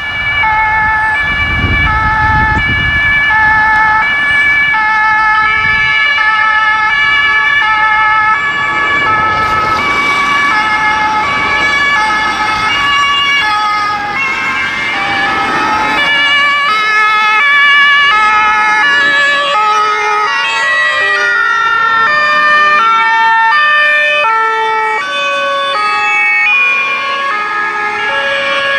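Several emergency vehicles' two-tone sirens (German Martinshorn) sounding at once, loud and starting abruptly. Their alternating high and low notes overlap out of step at different pitches. A low vehicle rumble rises briefly twice, near the start and about ten seconds in, as vehicles pass.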